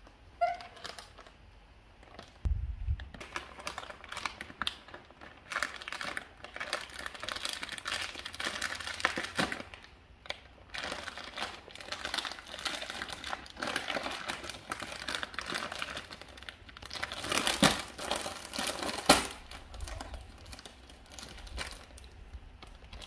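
Plastic bread wrappers crinkling and crackling as a baby macaque grabs, bites and pulls at them. The crinkling comes in uneven bursts and is loudest about three quarters of the way through.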